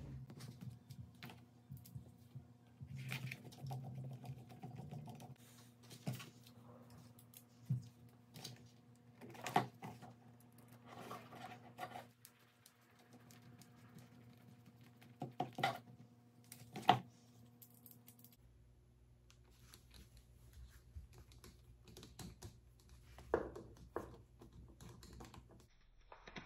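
Small kit parts being handled and fitted together by hand: scattered light clicks and taps, over a faint steady electrical hum.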